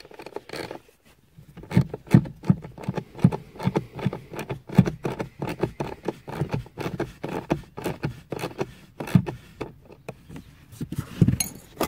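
Small socket ratchet tightening the 5 mm bolt that holds a car's heater blower resistor: a run of irregular clicks and light knocks from the ratchet and the handling, several a second, with one louder knock near the end.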